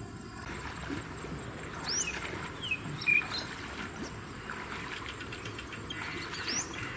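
Insects chirring steadily at a high pitch, with a few short bird calls that sweep in pitch about two, three and six and a half seconds in.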